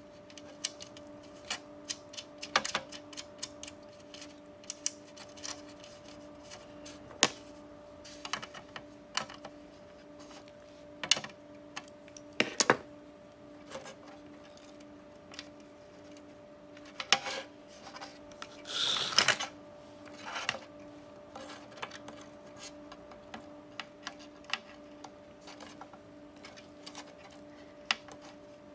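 Irregular clicks, taps and light knocks of hands handling wires and small parts inside a sheet-metal chassis, with a short scraping rustle about two-thirds of the way through. A faint steady hum runs underneath.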